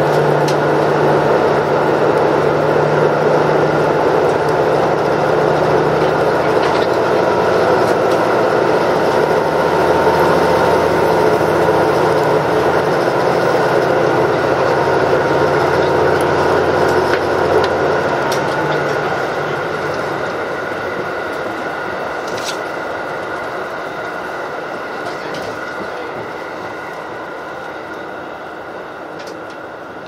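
Interior running noise of a KiHa 85 series diesel railcar at speed: a steady rumble of wheels on rail with the drone of its diesel engines. About two-thirds of the way through, the engine drone drops away and the whole sound slowly fades.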